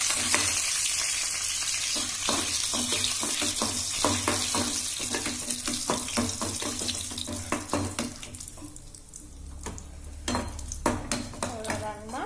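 Raisins and cashews sizzling in hot ghee in an aluminium kadai, with a metal spoon scraping and tapping the pan as they are stirred. The sizzle dies down after about eight seconds, and a few louder clanks of metal come near the end.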